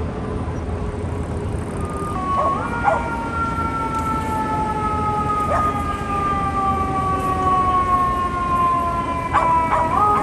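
FDNY fire apparatus siren on a slow wail: about two seconds in it climbs quickly in pitch, then falls slowly over about seven seconds, and climbs again near the end.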